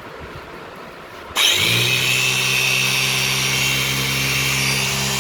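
Repaired 7 kg electric hammer's universal motor switched on about a second and a half in, then running steadily with a low drone and a high whine. This is the test run after a new field coil and carbon brushes were fitted.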